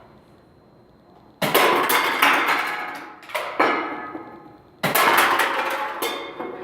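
Drink cans clattering as Nerf darts knock down a stacked pyramid: two sudden crashes about three and a half seconds apart, each followed by a rattle of cans tumbling and rolling.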